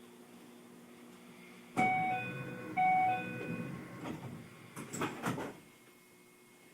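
Door-closing chime of a Keio new 5000-series train, a two-note ding-dong played twice, followed by the sliding doors shutting with a few thumps. A steady low hum of the standing train runs underneath.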